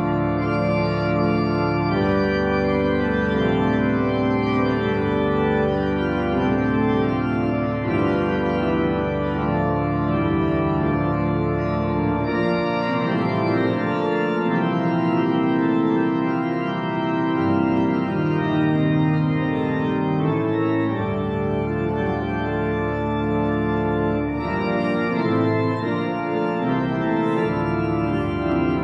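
Organ music: slow, sustained chords, with the bass notes changing every few seconds.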